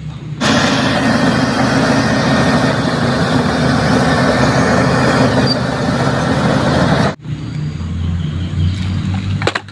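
Engine noise of a bulldozer, which starts suddenly and cuts off abruptly about seven seconds later, leaving a quieter, lower rumble.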